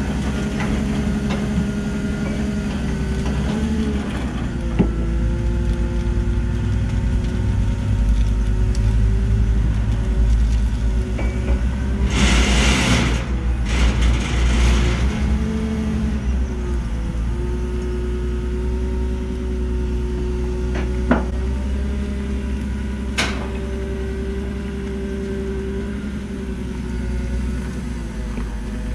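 Forklift working beside a running truck: a steady low engine rumble, with an engine tone that rises and falls as the forklift lifts and moves. About halfway through come two short hisses, and there are a few sharp knocks.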